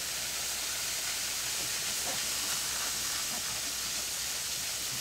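Hot frying oil and pan drippings sizzling in a skillet as flour is whisked in with a silicone whisk, cooking a roux for country gravy. A steady hiss.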